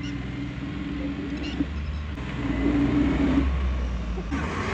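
Mahindra Bolero's diesel engine revving under load as the stuck SUV struggles for grip. The revs swell about halfway through and then drop back.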